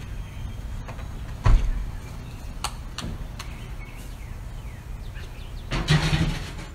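A few sharp metallic knocks and clanks from movers working at a box delivery truck and hand truck, the loudest about a second and a half in. Under them runs a low steady outdoor rumble.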